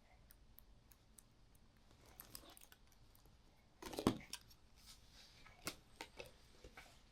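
Scattered light clicks and handling noises in a small room, with a louder knock and rustle about four seconds in.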